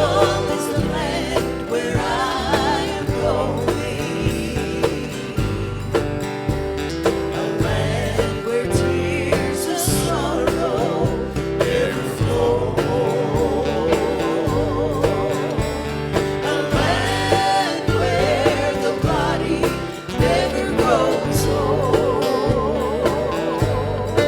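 Country gospel song: a voice singing with vibrato over acoustic band accompaniment and a steady, pulsing bass.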